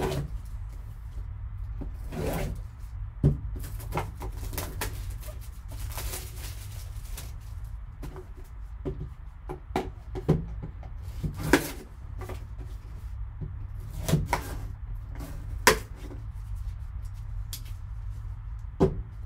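Plastic shrink wrap being slit with a serrated knife and peeled off a cardboard card box: irregular crinkling, scraping and tapping of the handling, over a steady low hum.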